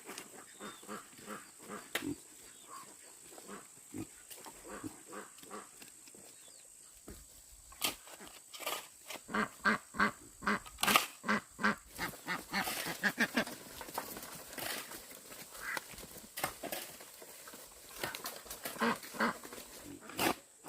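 Animals making many short, irregular calls, coming thicker and louder from about eight seconds in.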